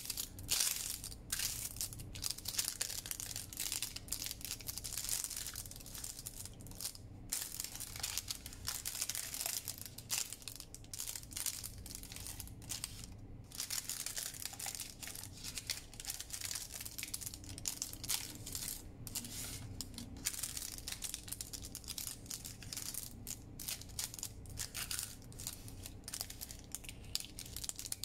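Parchment paper baking cup crinkling and rustling as hands flatten it and fold it into a small envelope, with several brief pauses between handlings.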